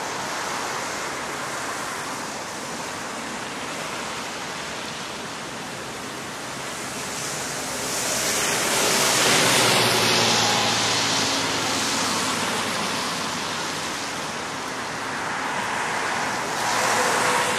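City traffic on wet streets after rain: a steady hiss of tyres on wet road, swelling louder about halfway through as a vehicle passes close, and rising again near the end.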